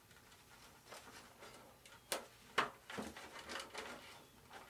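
Light handling noises: a few sharp small clicks and taps, the clearest a little after two seconds in and again around two and a half and three seconds, as tweezers and fingers work a servo wire through the wing's bulkheads.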